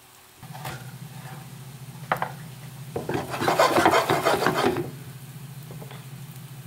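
Wooden spatula scraping and turning meatballs in a nonstick frying pan: a couple of light knocks, then a louder rasping scrape lasting about two seconds, over a steady low hum.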